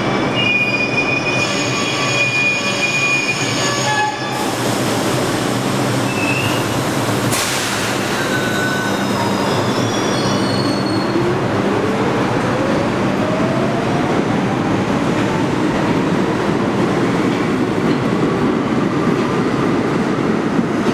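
New York City Subway R62 train humming steadily at the platform, then starting to move about four seconds in and building to a steady rolling roar. A few short wheel squeals come a few seconds later, and from about ten seconds in a rising motor whine is heard as it picks up speed.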